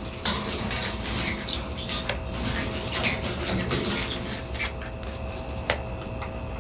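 A steady high hiss that fades out a little over four seconds in, with a few faint clicks and rustles as tarot cards are touched on a cloth-covered table.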